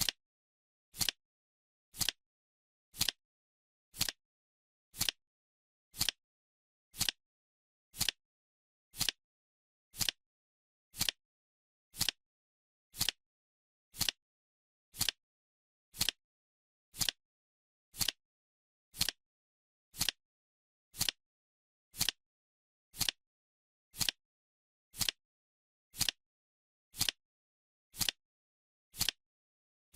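Clock ticking once a second, a sharp tick with silence between, steady and even.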